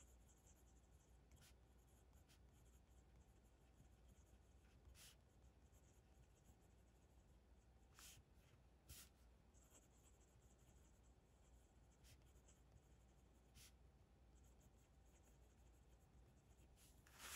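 Faint scratching of a rollerball pen with a Schmidt refill writing on smooth paper, coming in short patches stroke by stroke, with a few light ticks.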